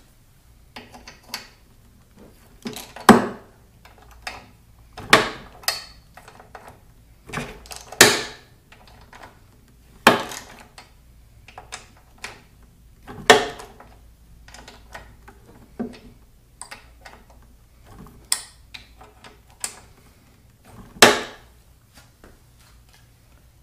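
Socket wrench loosening the cylinder head bolts of a Briggs & Stratton L-head engine one after another, in the torque-sequence order. About eight sharp metallic cracks come a couple of seconds apart, one as each bolt breaks loose, with lighter clicks and taps between them.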